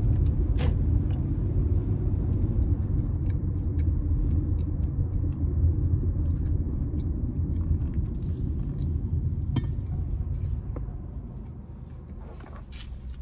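Car cabin rumble of road and engine noise while driving, a steady low drone that eases off about eleven seconds in. A few light clicks sit on top.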